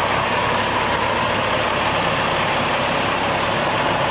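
Heavy truck diesel engine idling steadily, likely the 1989 Autocar's Cummins LTA10 inline-six turbo diesel.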